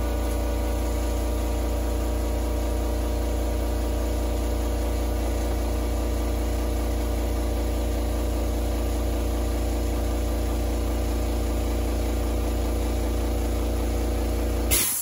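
Small electric pump motor running steadily with a low hum while bleeding air from the rear shock's damper, then switched off abruptly near the end.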